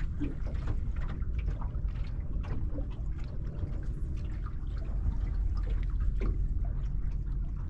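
Water lapping and trickling against a small boat's hull, with many small irregular splashes over a steady low wind rumble.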